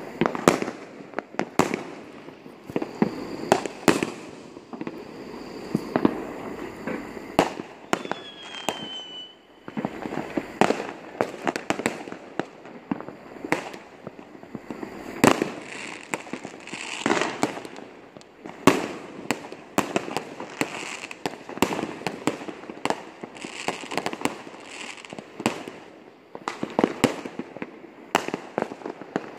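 Aerial fireworks going off near and far: an irregular stream of sharp bangs and pops over a continuous background of more distant bursts. About eight seconds in, a short whistle falls in pitch.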